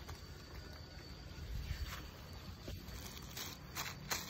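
Quiet outdoor ambience with a steady low rumble, and a few short rustles of a plastic bag being handled near the end.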